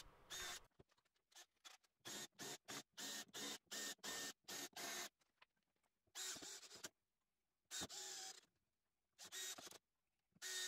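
Cordless drill-driver driving screws into laminated chipboard, running in a series of short, faint bursts of motor whine with brief pauses between them.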